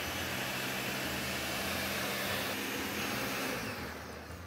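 Ninja countertop blender motor running, blending a full jar of coconut milks, as a steady whir. It winds down near the end as it is switched off.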